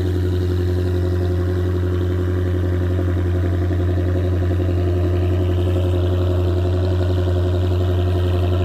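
Jaguar F-Type R's supercharged V8 idling steadily through its stock exhaust at a raised cold-start idle, a deep, even drone.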